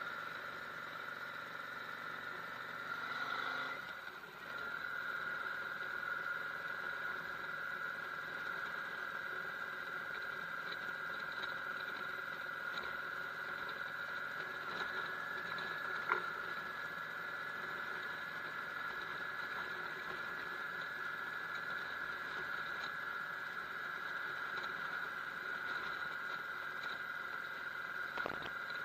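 Yamaha V Star 650 V-twin cruiser motorcycle running under way, its engine and road noise heard muffled through a helmet-mounted action camera. The sound dips briefly about four seconds in, and there is a single sharp click about sixteen seconds in.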